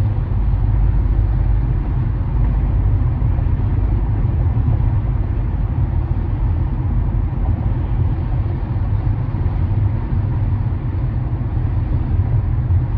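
Steady low rumble of a car travelling at freeway speed: tyre and road noise with the engine underneath, heaviest in the deep bass.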